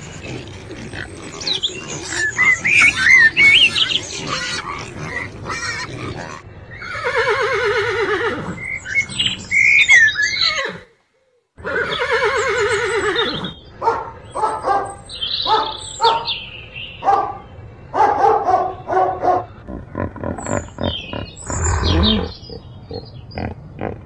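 A run of animal calls: pigs grunting and squealing, then, after a short silent break about eleven seconds in, a horse whinnying with long wavering calls, followed by a string of shorter animal calls and snorts.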